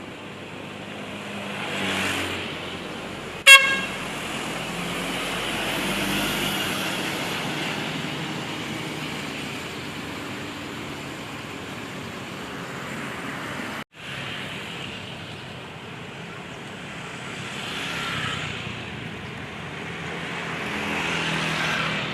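Road traffic, with vehicles passing one after another in swells. One very short, loud horn toot sounds about three and a half seconds in, and the sound drops out for an instant about fourteen seconds in.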